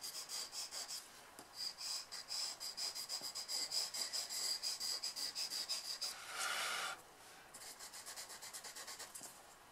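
A pastel scrubbed rapidly back and forth on paper: quick, scratchy rasping strokes, several a second. There is a denser scrub about six seconds in, then lighter strokes.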